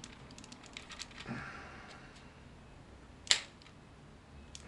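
Hard plastic parts of a Transformers Combiner Wars Bruticus figure and its Perfect Effect upgrade clicking and rattling as they are worked and pushed together by hand, with quick light clicks in the first second and one sharp, louder click about two-thirds of the way through.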